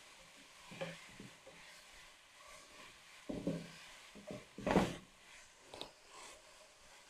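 Slotted spatula scraping and turning shredded vegetables in a nonstick pan during a stir-fry, in irregular strokes, with a louder scrape or knock about five seconds in and a faint sizzle underneath.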